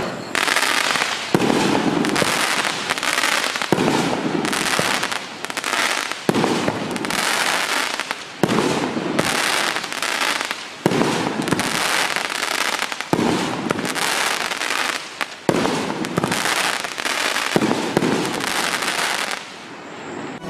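A 500-gram, 9-shot consumer firework cake firing its nine shots one at a time, about every two and a half seconds. Each shot is a sharp bang followed by about two seconds of crackling.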